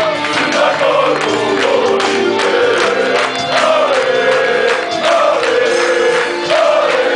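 A large crowd of football supporters singing a chant together, many voices in unison and loud throughout.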